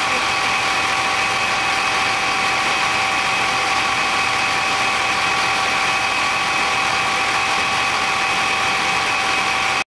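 Fire engine running steadily, a constant engine noise with a steady high whine over it.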